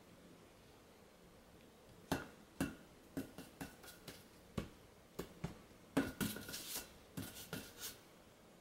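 A cat's paw striking a long inflated modelling balloon: an irregular string of sharp rubbery taps, some in quick pairs, starting about two seconds in and stopping near the end, with a busier patch of rapid hits about six seconds in.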